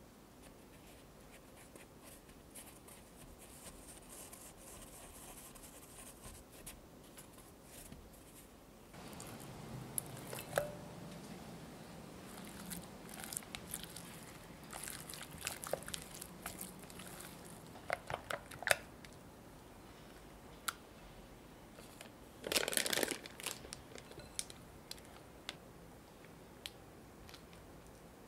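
Soft kitchen handling sounds while making donuts: faint scratchy rustling of sugar, then a spatula working sticky dough in a glass bowl with scattered light clicks and taps. A short louder scrape comes about two-thirds of the way in.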